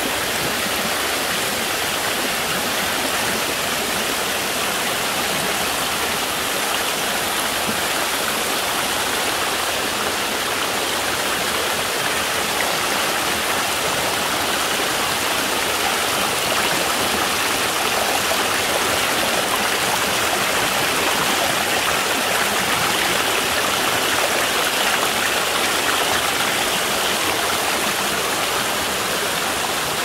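Shallow stream water rushing and splashing over small rock cascades of a terraced waterfall: a steady, continuous rush of water.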